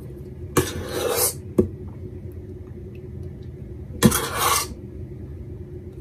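A spoon scraping twice against a stainless-steel mixing bowl while scooping out a thick condensed-milk and lemon cream, the second scrape opening with a light clink. A steady low hum runs underneath.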